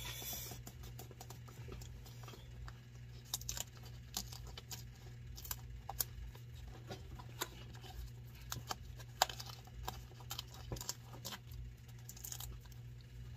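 Fingers pressing and smoothing a thin sheet of cork filler onto the bottom of a boot: faint, scattered rustles and small clicks, over a steady low hum.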